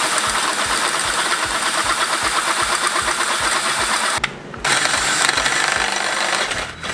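Cordless right-angle drill boring a hole through a metal suspension knuckle held in a vise, the motor and bit running steadily with a rhythmic pulsing. It stops briefly about four seconds in, starts again, and stops near the end.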